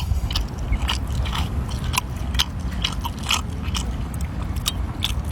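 Close-miked eating sounds: a person biting and chewing food, with irregular sharp clicks and crackles.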